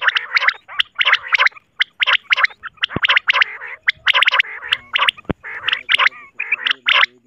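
Recorded common quail (batair) calls used as a hunting lure: a fast, continuous run of short, bright call bursts that repeat with brief gaps.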